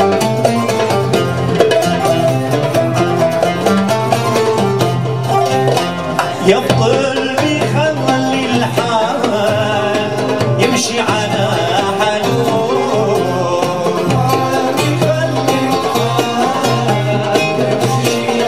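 Live ensemble playing a traditional Algerian Andalusian tune: a plucked lute and a nylon-string guitar over grand piano, bass guitar and a hand-held frame drum, with a steady bass line underneath.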